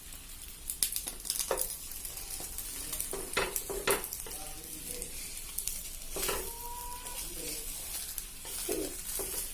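Noodle-and-egg omelette sizzling in oil in a non-stick pan, with several short clatters of a utensil against the pan.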